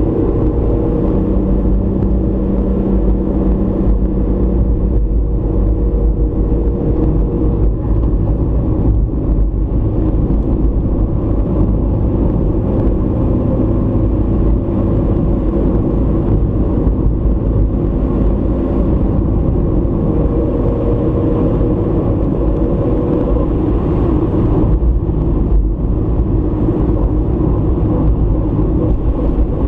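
Car driving along a road, heard through a dashcam microphone inside the cabin: a steady rumble of engine and tyres with a low hum.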